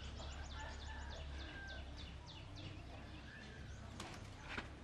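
A bird calling: a rapid run of short, high, falling chirps for about two seconds, then a few whistled notes. Two light clicks near the end.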